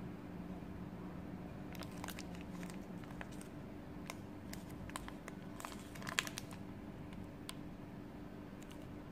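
Foil-lined wrapper of a mini KitKat crinkling as fingers handle it: scattered crackles from about two seconds in until near the end, with one sharper crack about six seconds in. A faint steady low hum runs underneath.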